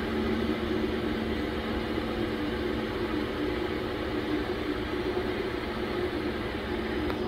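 Steady mechanical hum with a few steady tones over a low rumble, like running machinery or a fan.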